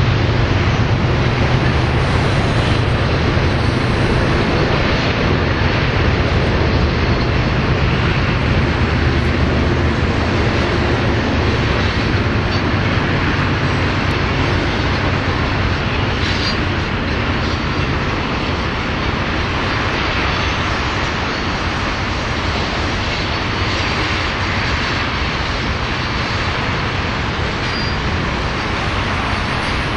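A freight train of tank cars rolling steadily past, a continuous rumble and rush of wheels on rail. Under it, the low drone of the train's diesel locomotives fades out over the first several seconds as they pull away.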